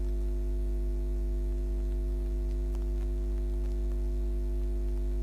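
A steady low hum made of several held tones that stay unchanged throughout, with a few faint clicks.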